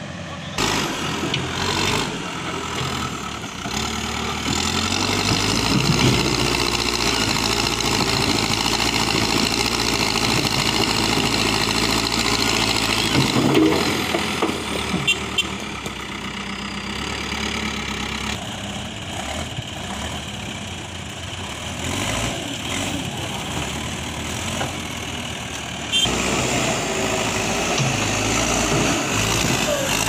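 Diesel engine of a Manitou backhoe loader running steadily while it works, its note shifting a few times, with occasional knocks.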